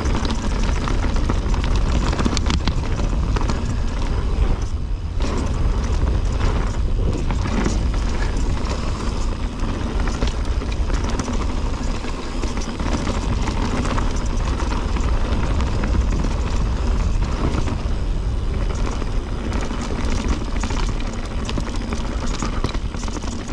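Mountain bike descending a rocky dirt trail: a steady low rumble of wind on the microphone under tyres crunching over dirt and loose rock, with the bike clattering and rattling over bumps in many short knocks.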